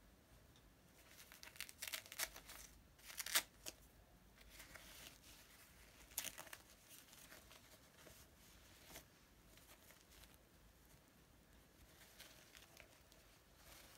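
Disposable nappy having its adhesive tabs peeled open and crinkling as it is pulled off, in several short ripping bursts, the loudest about three seconds in.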